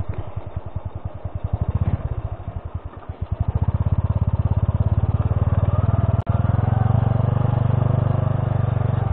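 Honda C70's small single-cylinder four-stroke engine running at low revs with separate, distinct exhaust beats. About three seconds in, the throttle opens and the engine pulls steadily louder under way. There is a brief drop about six seconds in.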